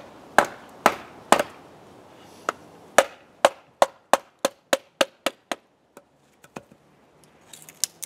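A wooden baton knocking on the spine of a Nature Xplore machete to drive it through a piece of firewood on a chopping stump (batoning). There are three loud knocks in the first second and a half, then a quicker run of about three knocks a second, fading to a few light taps near the end.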